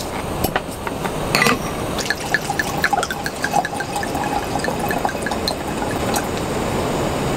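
Liquid being poured, gurgling in a quick run of short blips, about three or four a second, with a few sharp clicks before it.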